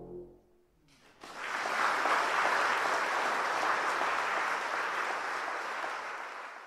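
A brass band's final chord dies away. After about a second of quiet, an audience breaks into steady applause, which begins to fade near the end.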